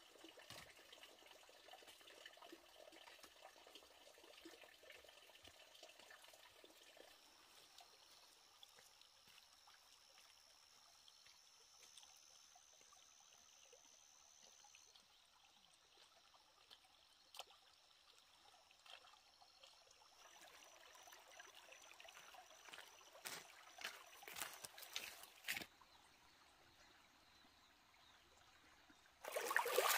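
Faint trickle of a shallow stream, with a few soft clicks a little before the end.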